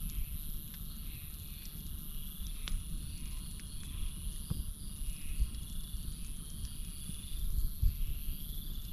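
Campfire crackling, with a few sharp pops (a clear one about a third of the way in), over a low rumble. Behind it runs a night chorus of crickets and frogs: a steady high drone and a pulsing chirp that repeats about once a second.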